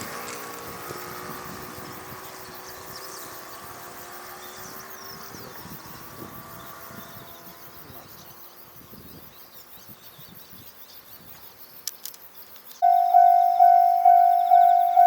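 A passing train's rail noise fades away, growing quieter over about ten seconds. Near the end a Japanese level-crossing alarm starts up loudly, an electronic 'kan-kan' bell repeating about twice a second, which signals that another train is approaching.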